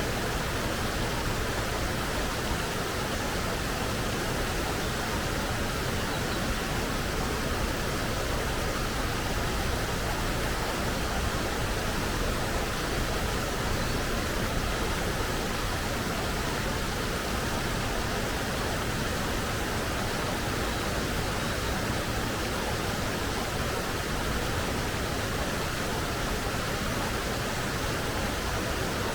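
Forest stream: clear water flowing over rocks, a steady even rush with no changes.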